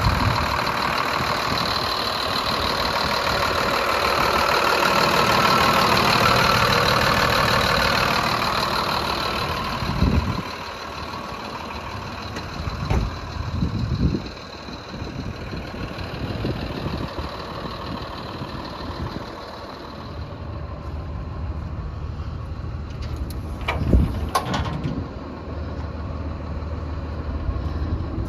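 Mercedes diesel engine of a 2006 Freightliner truck idling steadily. It is loudest for about the first ten seconds and quieter after that, with a few short knocks and clicks over it.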